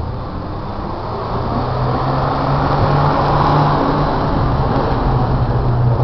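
A motor vehicle passing on the street: engine hum and road noise that build through the first half and stay loud.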